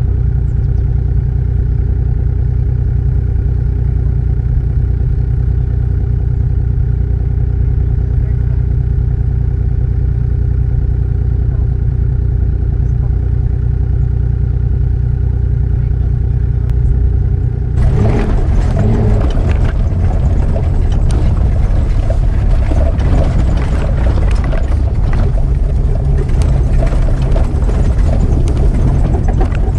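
Mitsubishi Pajero's 3-litre V6 idling steadily. About two-thirds of the way through, the sound changes abruptly to the engine running louder and rougher as the 4x4 crawls a rutted dirt trail, with many short knocks.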